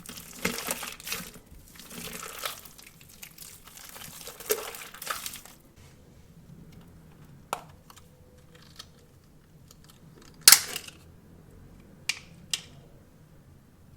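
Crunchy crinkling of a cut-open stress ball and its filling being handled for about five seconds. It then goes quieter, broken by a few sharp snaps, the loudest about ten and a half seconds in.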